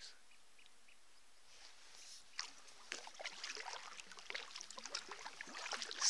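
Kayak paddle strokes on calm water: soft irregular splashing and dripping from the paddle blades, starting about two seconds in after a faint, near-quiet start.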